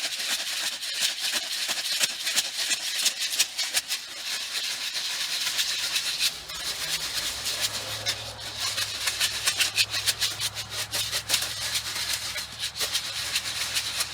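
Tannerite, ammonium nitrate beads with aluminium powder, rattling and swishing in a jug shaken hard by hand to mix it: a fast, continuous rattle. A low steady hum joins about halfway through.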